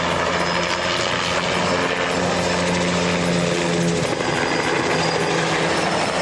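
Helicopter in flight: a steady drone of rotor and engine.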